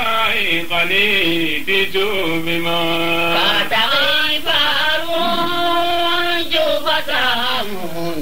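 A man's voice chanting a slow melody, holding long wavering notes.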